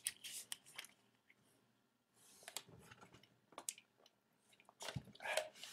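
Faint crinkles and clicks of a plastic water bottle being handled and opened, then gulping as water is drunk from it near the end.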